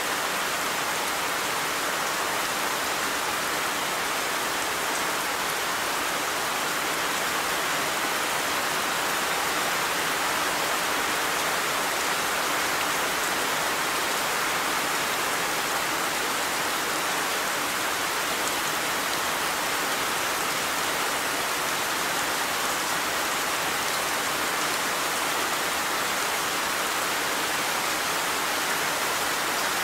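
Steady rainfall, an even hiss of rain coming down without letup.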